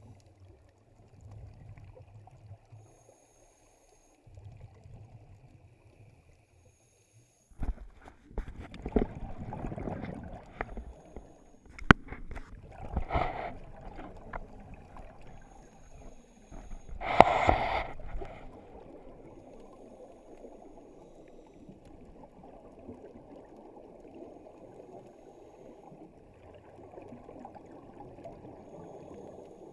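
Scuba divers' exhaled regulator bubbles gurgling underwater, heard through a camera's waterproof housing: several bursts of bubbling in the middle, the loudest about 17 seconds in, with a sharp knock about 12 seconds in. After that, a low steady wash of water.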